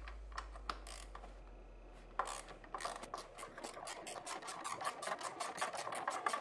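Ratchet wrench clicking as it backs out a motorcycle brake caliper bolt. A few separate clicks at first, then from about two seconds in a fast, steady run of clicks.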